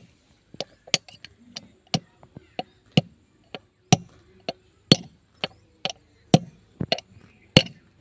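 Hammer striking a steel punch held in the bore of a tractor's cast front wheel hub, working on the bearing race. Sharp metal-on-metal blows come about two a second, some harder than others.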